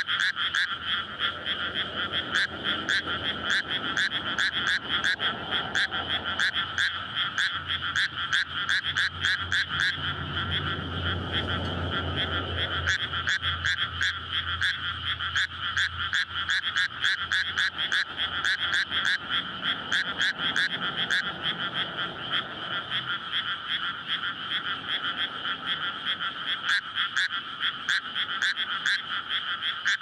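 Dense breeding chorus of many frogs calling together in a flooded rice paddy: countless rapid, overlapping pulsed calls merging into one continuous high rattle. Underneath, a low rumble of passing road traffic swells and fades a few times, loudest near the middle.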